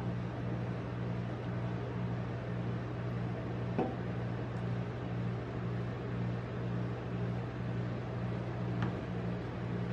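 Steady low hum of a rolled-ice-cream machine's refrigeration compressor running under its cold plate, with two faint ticks about five seconds apart.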